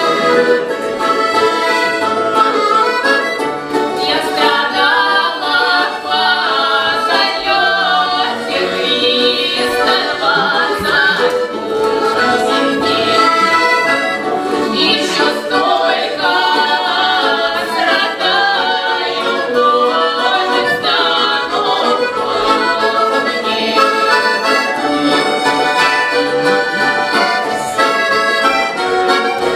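Accordion playing a Russian folk tune, joined about four seconds in by singers of a folk ensemble.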